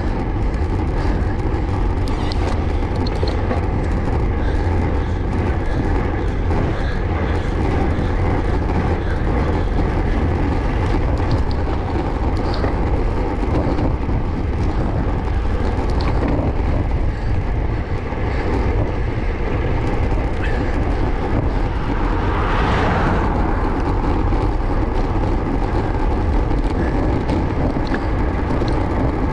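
Wind buffeting a bike-mounted GoPro microphone as a road bike is ridden, a steady heavy rumble over the hiss of tyres rolling on coarse tarmac. A brief swell of brighter hiss comes about three-quarters of the way through.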